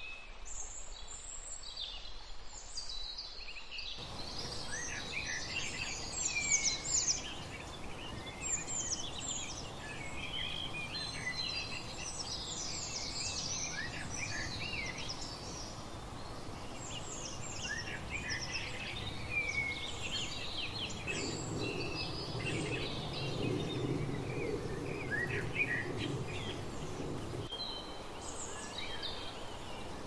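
A chorus of several wild songbirds chirping and singing, with many short overlapping calls and whistled notes, over a steady outdoor background hiss. A low rumble joins in for several seconds in the second half.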